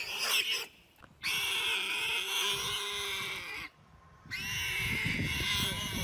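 Warthog squealing in distress while a leopard pins it down: a short squeal, then two long, high, wavering screams of about two and a half seconds each, broken by a brief pause.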